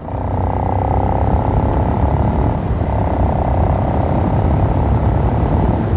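Motorcycle running at a steady pace while being ridden, heard from the rider's microphone, with wind rumbling on the microphone.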